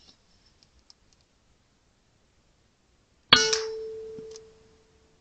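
A single shot from an RTI Prophet P3 PCP air rifle about three seconds in: a sharp crack followed by a metallic ring that fades over about a second and a half.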